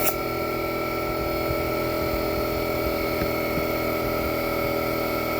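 Air compressor motor running steadily, a constant machine whine with a low hum, while a tire is being inflated; a sharp click right at the start.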